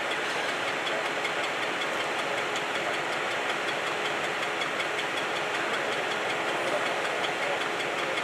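A vehicle engine idling steadily under an even hiss.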